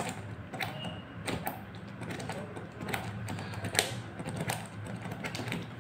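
Thick tomato sauce, reduced to about half, bubbling in the pan: irregular sharp pops and spits, several a second, over a steady low hum.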